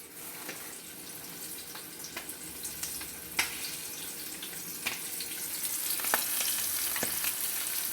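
Flour-dredged chicken frying in oil in a skillet: a steady sizzling hiss with scattered pops and crackles, growing a little louder toward the end.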